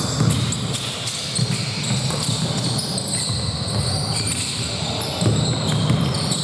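Basketball game play in a gym: a ball bouncing on the court amid the players' movement, with short high-pitched squeaks throughout.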